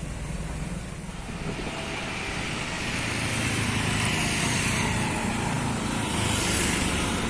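A road vehicle's engine and tyre noise getting louder as it approaches over the first few seconds, then holding steady.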